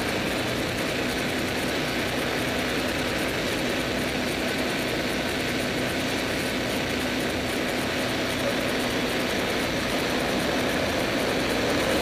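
Stagecoach city bus's diesel engine idling close alongside, a steady rumble with a faint steady hum.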